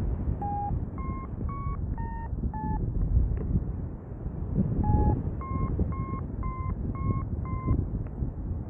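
Paragliding variometer beeping in two runs of short beeps, about two a second, the pitch stepping up and down; the beeping signals the glider climbing in lift. Wind rushes on the microphone underneath.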